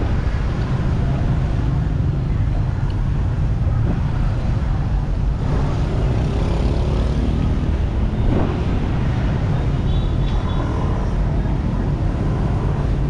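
Steady low rumble of street traffic mixed with wind buffeting the microphone.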